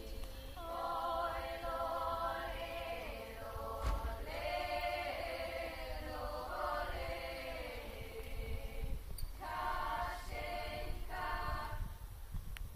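A cappella women's vocal ensemble singing in close harmony, in long held phrases with short breaks between them. A low rumble runs underneath.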